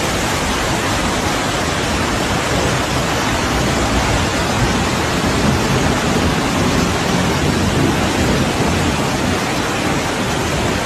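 Loud, steady rushing of floodwater from a river overflowing in a flash flood: an even roar without breaks.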